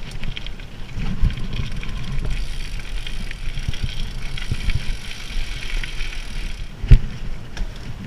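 Gravel bike rolling over a rough grassy path: a steady low rumble of tyres with small rattles and knocks from the bike. A sharp knock about seven seconds in, the loudest sound, comes as the bike jolts down toward the road.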